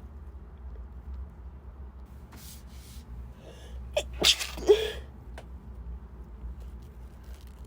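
A woman sneezing once, about four seconds in, with a few quick breaths drawn in beforehand. Her nose is congested.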